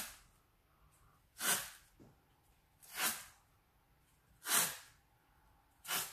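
Adhesive sports tape pulled off the roll as it is wound around a boxer's fist, five short rips about a second and a half apart, one for each turn of the wrap.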